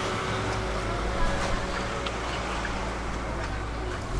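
Outdoor street ambience: a steady low rumble, with faint ticks of footsteps on the pavement.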